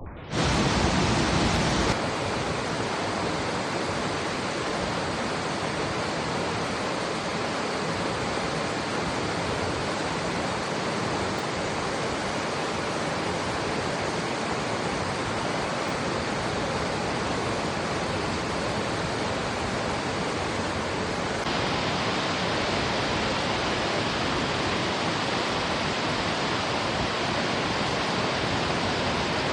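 Steady, loud rushing of a mountain river's water below a waterfall, an even roar with no breaks.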